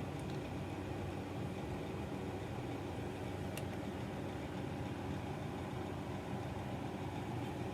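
A steady low mechanical hum, with one faint click about halfway through.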